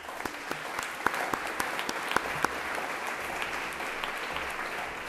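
Audience applauding: steady clapping from a crowd, with a few sharp single claps standing out in the first two and a half seconds.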